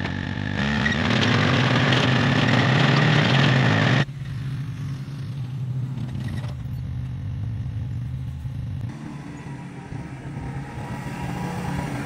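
Small yard-vehicle engines running across several abrupt edits. An engine swells up a little under a second in and runs loud until a sudden cut about four seconds in, then a quieter engine runs steadily, dropping in level again near nine seconds.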